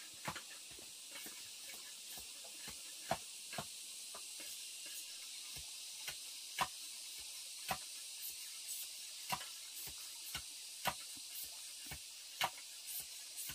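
Food sizzling in a hot pan: a steady hiss with irregular sharp pops, about one or two a second.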